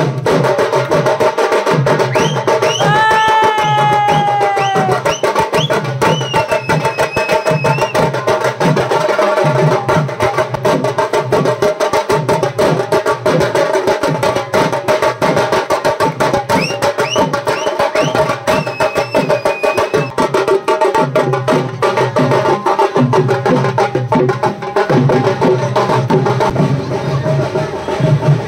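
A drum beaten in a fast, unbroken rhythm over a steady droning tone, with a shrill held note briefly about three seconds in.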